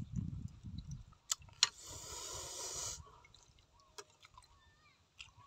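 Food being handled on a plate of grilled squid: soft thumps, a few light clicks of a metal spoon against the sauce bowl, and about a second of rustling, scraping noise as squid is torn and dipped in chili sauce.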